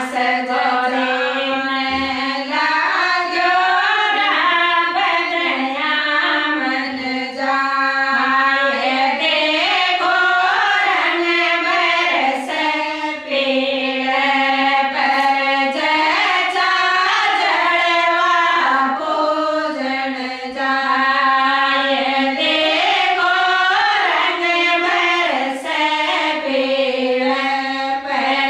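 Women singing a Shekhawati folk song for the jalwa (well-worship) rite together, in one melody line with long held notes and a phrase that keeps repeating.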